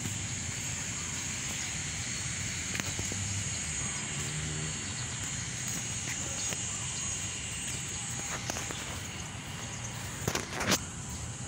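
Rustle and low rumble of a handheld phone being carried while walking outdoors, over a steady high hiss, with scattered clicks and a short burst of sharp crackling clicks near the end.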